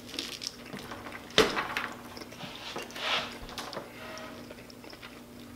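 Quiet eating at a table: a few light clicks and taps of chopsticks against food and foam takeout containers, one sharper click about a second and a half in and a short soft rustle about three seconds in.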